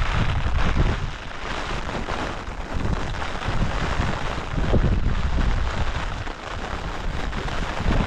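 Strong wind gusting across the microphone in a snow flurry, a heavy low rumble of buffeting that swells and drops away in gusts.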